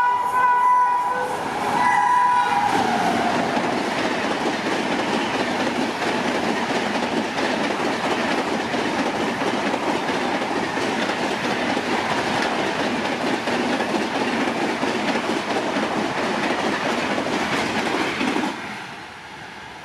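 An Indian Railways WAP-7 electric locomotive sounds its horn on approach. The horn drops in pitch and stops about three seconds in, and then comes the steady rush and rail clatter of LHB coaches passing at full speed. The sound cuts off sharply near the end.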